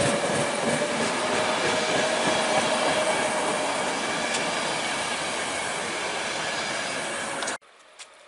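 Locomotive-hauled passenger coaches rolling past on the rails, a steady noise of wheels on track with a steady wheel whine and an occasional click over a rail joint. The sound cuts off suddenly near the end, leaving only faint background hum.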